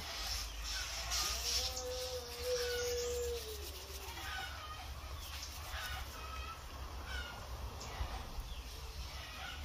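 Birds chirping on and off. About a second in, a rooster crows once: a long held call that drops away at the end.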